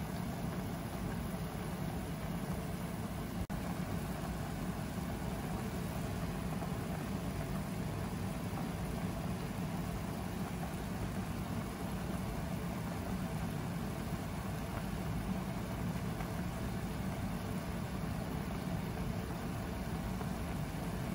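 Steady low rumbling noise from the stove as a pot of adobo simmers, even and unbroken.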